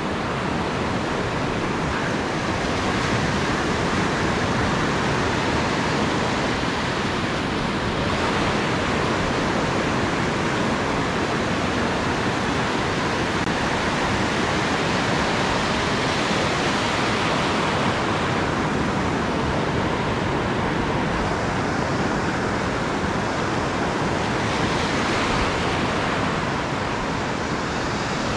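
Ocean surf: waves breaking and whitewater washing up the sand in a steady, even rush of noise.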